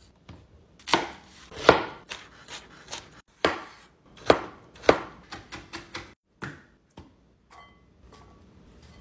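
Knife chopping vegetables on a cutting board: irregular sharp knife strikes, several a second, thinning out to a few faint ones near the end.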